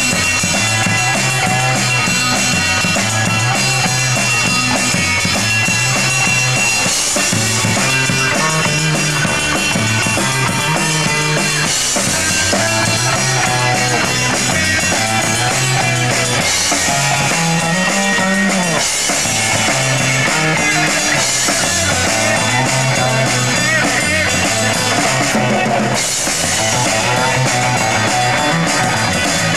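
Live rock band playing: electric guitars over a stepping bass line and a drum kit, loud and without a break.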